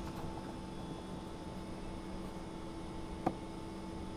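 Steady electrical hum of the workshop's background, with one short click a little over three seconds in.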